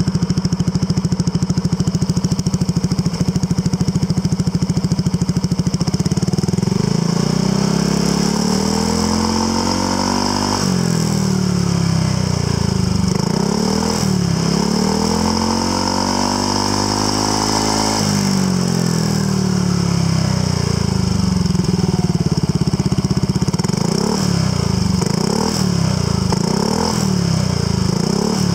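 Yamaha NMAX 125 scooter's single-cylinder four-stroke engine running through a WR'S titanium oval full exhaust. It idles steadily for about six seconds, is then revved up and let fall in several long sweeps, and gets a run of short throttle blips near the end.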